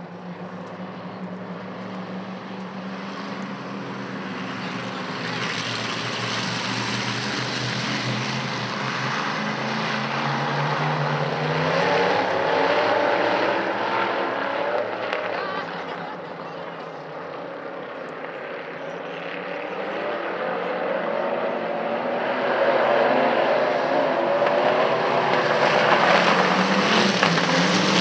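A pack of dirt-track modified race cars running laps at speed, their engines swelling as the field comes past and fading as it moves away. The sound is loudest near the end as the cars come through the turn close by.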